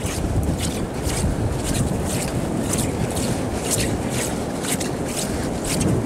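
Wind buffeting the microphone, a steady low rumble, with a run of short scraping sounds, two or three a second, over it.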